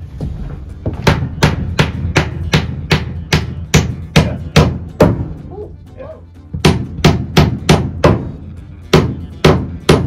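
Hand hammer driving nails into a wooden plywood floor: a quick series of sharp strikes, about two to three a second, stopping for a moment around the middle and then going on.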